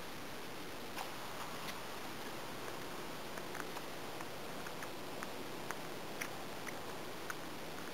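A cat chewing and crunching on something in the grass: scattered, irregular sharp clicks over a steady hiss.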